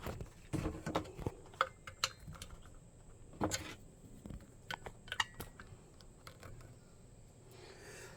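Scattered light clicks and taps of hands handling things up close, thinning out after about five seconds.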